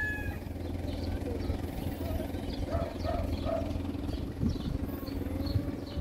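Vehicles of a passing caravan running with a steady low engine hum. A few short animal calls come about three seconds in, with faint high chirps scattered throughout.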